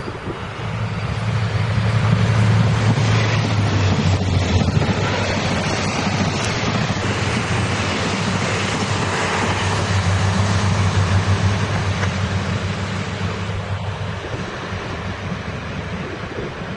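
A Taiwan Railways train passing at speed, with the steady rumble and rush of wheels on rail. It swells about two seconds in and eases off toward the end.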